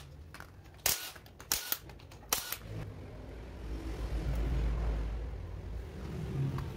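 Several sharp metallic clacks in the first couple of seconds as the cylinder-head nuts of a Kawasaki Ninja RR two-stroke engine are undone. Then a low rumbling handling noise as the aluminium cylinder head is worked loose and lifted off the cylinder.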